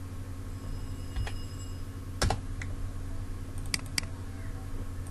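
Computer keyboard keys pressed one at a time, a handful of separate clicks with the loudest a quick double about two seconds in, as a value is typed in and entered, over a steady low hum.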